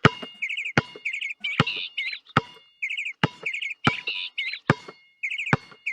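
Synthetic sound effect: sharp clicks mixed with quick warbling electronic chirps and a thin steady beep. The same short sequence repeats about every two and a half seconds.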